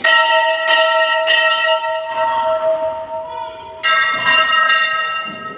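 Temple bell rung by hand, three strikes in quick succession and then three more about four seconds in, each note ringing on and slowly dying away between strikes.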